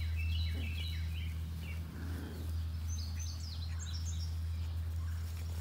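Small birds chirping in the background: short, high, quickly falling chirps in two bursts, one at the start and one about three seconds in, over a steady low hum.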